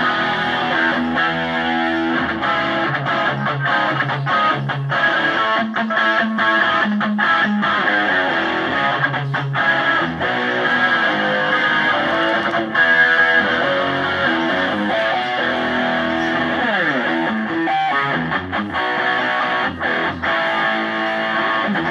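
Electric guitar played through an amp on a crunchy, slightly distorted preset with chorus, strumming chords and playing riffs.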